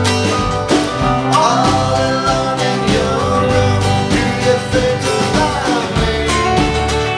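Live country-rock band playing a song: strummed acoustic guitar with electric guitars over a steady beat, and a melody line bending in pitch across the middle.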